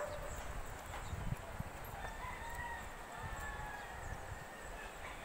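One faint, long, drawn-out call from a distant animal, about two seconds in, over uneven low rumble on the microphone.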